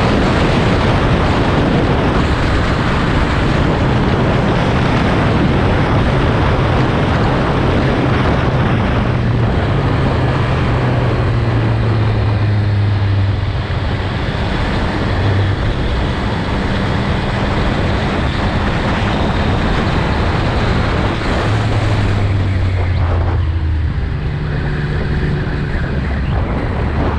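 Heavy wind rushing over an unprotected action-camera microphone on a motorcycle at high speed, with the Triumph Speed Triple 1200 RS's three-cylinder engine running underneath, its note stepping up and down as the revs change. The wind eases a little about halfway through.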